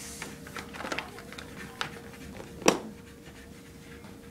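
Scattered small taps and clicks of children handling colouring supplies on a table while drawing, with one louder knock about two and a half seconds in. A faint steady hum runs underneath.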